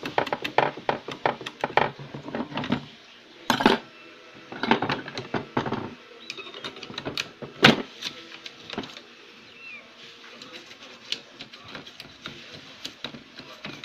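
Quick scratching and clicking of a small tool scraping rust off a mylar capacitor's legs on a CRT TV circuit board. Dense for the first few seconds, then scattered sharp taps and clicks.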